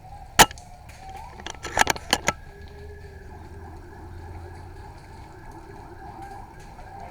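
Airsoft gun shots: one sharp crack about half a second in, then a quick string of about five more a second later, over a steady low background.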